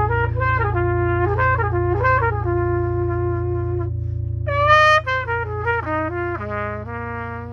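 Brass instrument playing a slow melody of held notes over a steady low drone. The line pauses about four seconds in, returns louder and brighter around five seconds, steps down, and settles on a held lower note.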